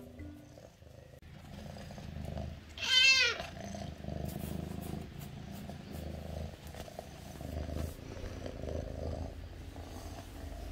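Domestic cat purring, a steady pulsing low rumble, while it nuzzles up affectionately. One short meow cuts in about three seconds in.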